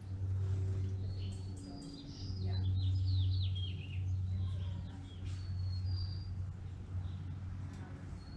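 Songbirds chirping and singing: scattered high chirps and a quick run of falling whistled notes about two to four seconds in, over a steady low hum.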